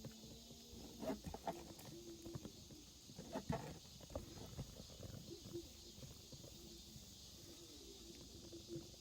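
Faint rustling and light taps, with the sharpest taps about a second in and about three and a half seconds in, likely kittens moving about among stacked firewood.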